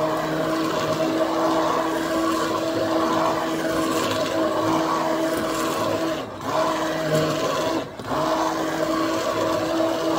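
Electric immersion (stick) blender running in a pot of thin karhi batter, a steady motor whine with the churning of the liquid. It cuts out briefly twice, about six and eight seconds in.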